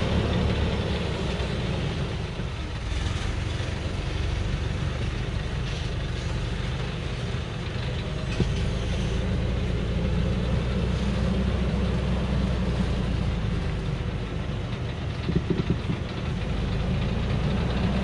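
Heavily loaded light dump truck's engine running slowly as the truck crawls down a steep, rutted dirt track. There is a sharp knock about eight seconds in and a short clatter of knocks near the end.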